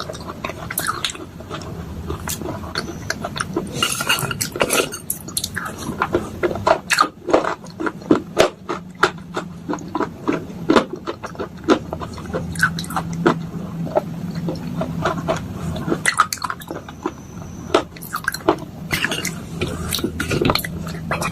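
Soaked clay and slate pieces being crunched: a dense, irregular run of wet crunches and sharp clicks.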